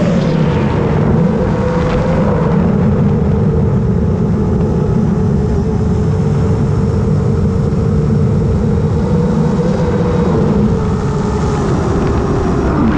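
Long-range FPV quadcopter's brushless motors whining at a steady cruising pitch that dips slightly now and then. Heavy wind rumble on the onboard camera's microphone runs underneath.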